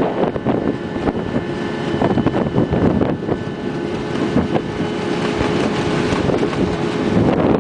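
Reeling machine (wire winch) running at about 5 tons, a steady machine hum with a held whine over a rough rumble. Wind gusts on the microphone.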